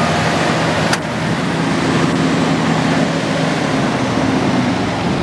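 Hitachi ZX350 excavator's Isuzu diesel engine running steadily, heard close beside the open side compartments, with a single sharp click about a second in.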